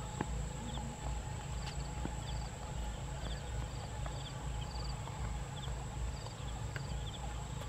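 Open-field ambience while walking: a low, fluctuating rumble on the microphone, with short high chirps repeating every half second or so.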